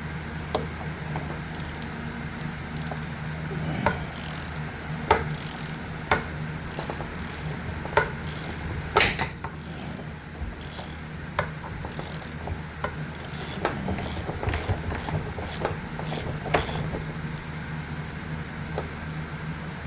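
Half-inch drive ratchet wrench clicking in uneven strokes on a fitting of a paint sprayer's pump, a string of sharp ratchet clicks that stops a few seconds before the end.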